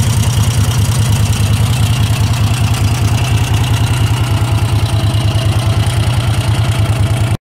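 A 1983 Moto Guzzi 850 Le Mans III's 844cc air-cooled 90-degree V-twin idles steadily at about 1,000 rpm with an even, pulsing exhaust beat. It cuts off suddenly near the end.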